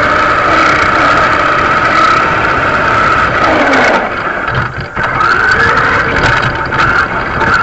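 Radio-controlled model car's motor and drivetrain whining, heard from a camera mounted on the car. The whine rises and falls in pitch with the throttle, sliding down about three and a half seconds in, and the sound dips briefly near five seconds in as the car runs off the tarmac onto rough grass.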